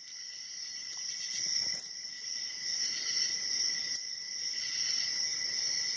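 A steady, high-pitched background drone with a few faint small clicks.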